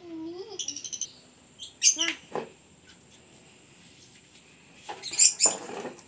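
Pet lovebirds chirping: a quick run of high chirps near the start, then loud shrill calls about two seconds in and again near the end.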